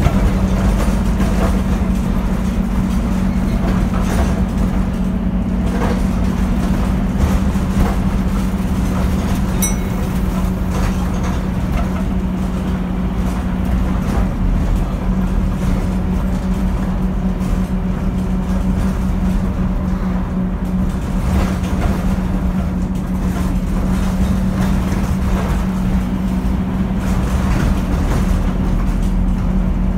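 Scania East Lancs Olympus double-decker bus heard from inside the lower deck: the engine runs with a steady low hum over road rumble.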